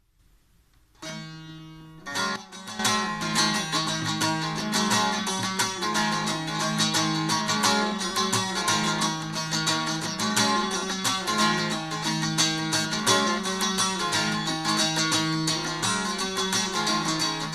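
Bağlama (long-necked Turkish saz) played solo: a single plucked note rings about a second in, then from about two seconds in a fast, steady run of plectrum strokes plays a melody over a steady low drone.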